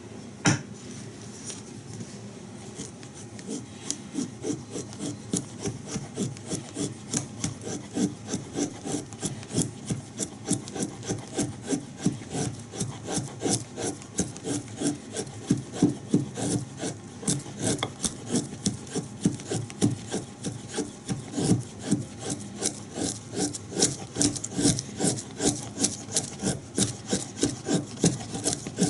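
Bark River Bushcrafter knife shaving soft pine, cutting feather-stick curls. It goes in a long run of short, even scraping strokes, about two a second, that grow clearer a few seconds in.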